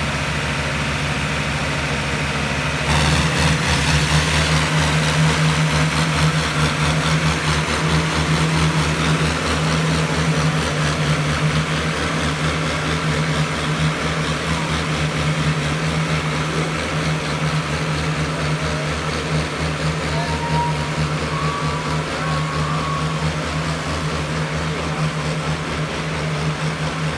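Farmtrac 6060 tractor's diesel engine running at high, steady revs under load in a tractor tug-of-war pull, louder from about three seconds in.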